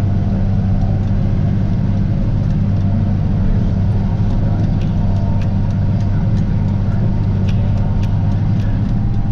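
Tractor engine running steadily under load while a pull-type forage harvester chops corn, a constant low drone. Scattered sharp ticks sound over it in the second half.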